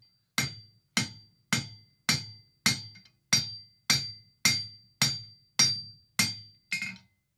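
Twelve hand-hammer blows on red-hot steel over a hardy block in an anvil, about two a second, each with a short metallic ring. The tail end is being forged down into the block's tapered cone to spread it into fins.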